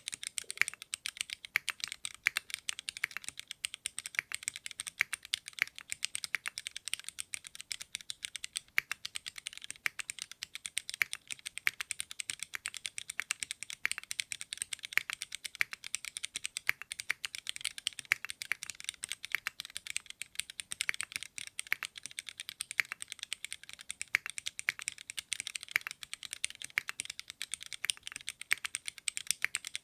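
Fast typing on a Singakbd Rubrehaku custom mechanical keyboard: a dense, unbroken stream of key clicks.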